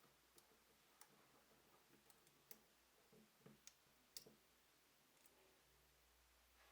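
Faint, irregular clicks and ticks of small tools and metal parts being handled as a Nikon FM2n camera's front plate is taken apart. The two loudest clicks fall about two and a half and four seconds in.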